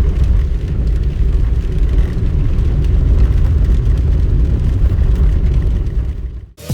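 A car driving along a road, heard as a steady low rumble of engine and tyres; it drops away abruptly near the end.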